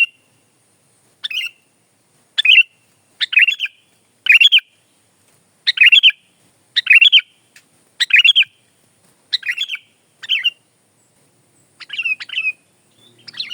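Sooty-headed bulbul (kutilang) singing: a string of short, bright chirpy phrases repeated about once a second, with a brief pause a little after the middle.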